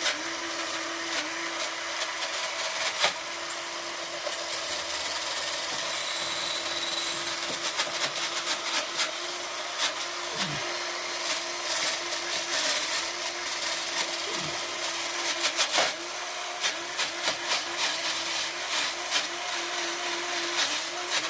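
Cordless drill running steadily with a wire brush on the end, scrubbing the engine casing and cooling fins of a Suzuki GS850G. A steady motor whine sits under a harsh scratchy rasp from the bristles, and the motor's pitch dips briefly a few times under load.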